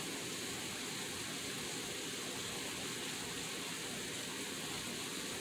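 Sliced Brussels sprouts sizzling in butter and oil in a hot enameled cast-iron skillet: a steady hiss.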